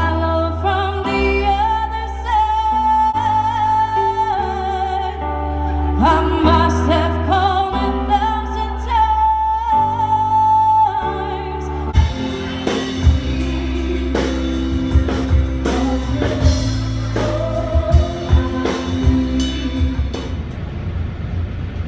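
Live band playing amplified through a PA: a woman sings long held notes with vibrato over drums, electric bass, guitar and keyboard. About halfway through the music turns to a busier part, full of drum hits, with less singing.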